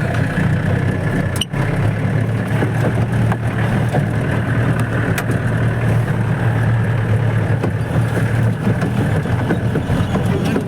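Off-road safari jeep's engine running steadily, heard from inside the open vehicle.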